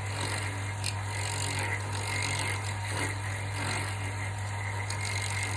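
Wood lathe running with a steady hum while a spinning D-bit (gun drill) cuts sideways through a wood block, milling out a slot with a continuous scraping hiss.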